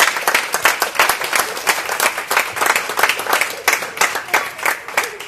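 Audience applauding, many hands clapping irregularly, thinning out a little near the end.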